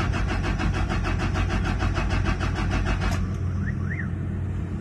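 Toyota Fortuner's common-rail diesel engine cranking on the starter, an even chugging of about six or seven beats a second that stops about three seconds in without the engine catching. The mechanic suspects an airlock: air bubbles in the fuel system after it ran nearly empty. A steady low hum runs underneath.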